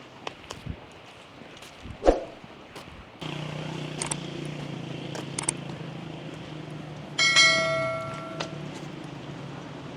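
Scattered footstep-like clicks, then a steady low hum that starts abruptly about three seconds in. About seven seconds in comes one loud metallic, bell-like ring that fades over about a second.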